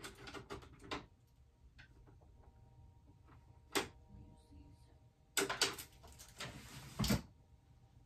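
Small objects being handled on a table: a few clicks and rustles in the first second, a single sharp click near four seconds in, then a longer rustling clatter that ends in a thump about seven seconds in.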